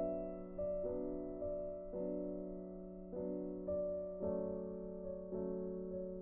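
Background music: a gentle piano melody, a note struck about every half second to second and fading, over a steady low held tone.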